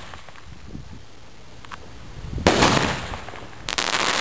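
Finale firework cake, One Bad Mother, firing shots: two sudden loud bangs about two and a half and nearly four seconds in, each followed by a crackling tail.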